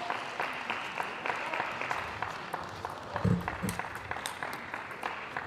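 Spectators applauding after a point, the clapping thinning out toward the end, with a brief voice a little past the middle.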